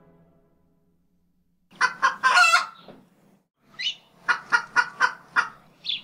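A chicken clucking in quick runs of short clucks, about four a second, starting a little under two seconds in, with a longer drawn-out cluck near the end.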